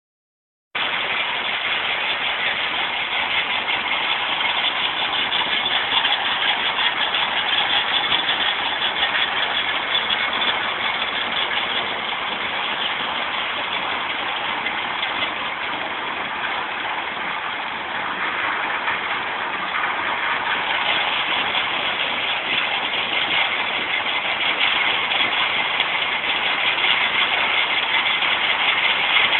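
Stone crusher machine running: a steady, dense mechanical din that starts abruptly just under a second in.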